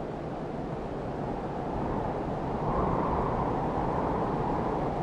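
Wind blowing across an open hillside: a steady rushing noise that swells about two to three seconds in and then holds.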